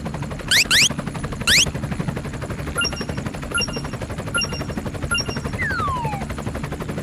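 Cartoon sound effects: a fast, continuous rattling clatter, with three quick rising zips in the first two seconds, a run of short beeps through the middle and a falling whistle near the end.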